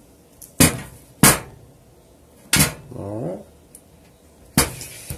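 Four sharp clacks at uneven intervals, hard objects knocked or set down on a hard tabletop.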